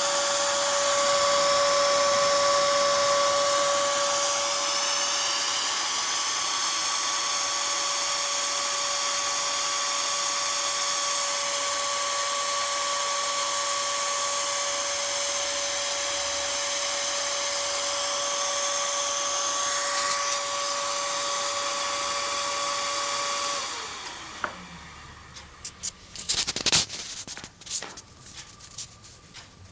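Dell Optiplex GX280 CPU fan running flat out with a steady whine, a loud noise the owner likens to a jet fighter: the fan stuck at full speed while the PC shows no display, even with only the power supply attached to the motherboard. About 23 seconds in it winds down quickly, followed by a few clicks and knocks.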